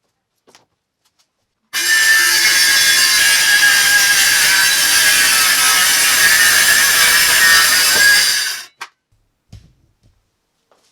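Circular saw cutting through 1/2-inch plywood. It starts about two seconds in, runs steadily for about seven seconds and stops abruptly, with a few faint knocks before and after.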